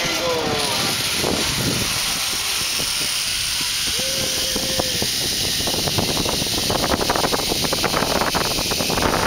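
Zipline trolley running along the steel cable with a steady hiss. Wind buffets the microphone over the last few seconds.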